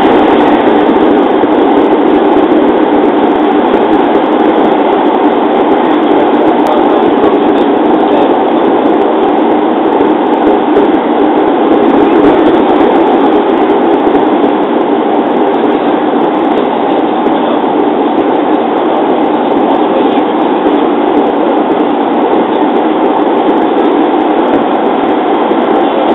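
Running noise of a JR 205-series electric commuter train, heard from inside the car: a steady, continuous rumble of the moving train at cruising speed.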